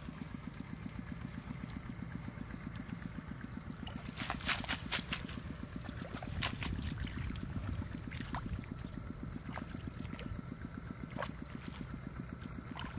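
A small engine running steadily with a fast, even low throb, and water splashing, with a burst of sharp splashes and clicks about four to five seconds in.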